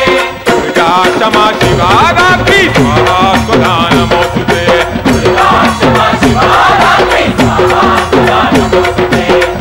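Devotional gajar music: voices chanting over a fast, steady percussion beat with rattles.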